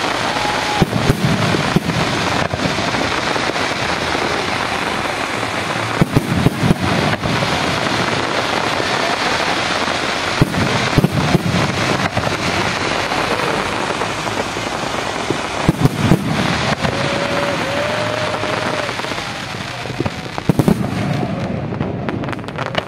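Aerial fireworks display: a continuous crackle with sharp bangs, in clusters every few seconds.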